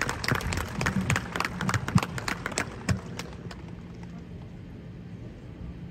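Crowd applauding outdoors, the clapping dying away about three and a half seconds in and leaving a steady low hum.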